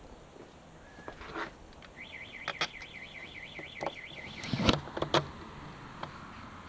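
Scattered clicks and knocks of a screwdriver and metal parts working on a trolling motor's mount, fastening its gas struts, with one sharp knock about two-thirds of the way through. A high warbling trill sounds for about two seconds in the middle.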